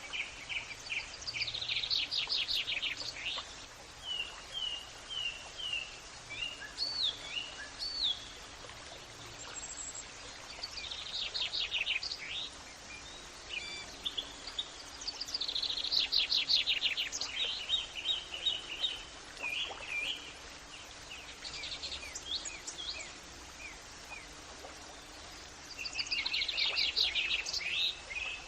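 Songbirds singing outdoors: short phrases of rapid high trills and chirps recurring every few seconds over a steady background hiss.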